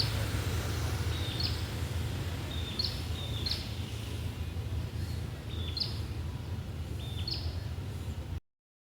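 A prinia (perenjak) calling: about seven short, sharp chirps at irregular intervals of roughly half a second to a second and a half. The sound cuts off abruptly near the end.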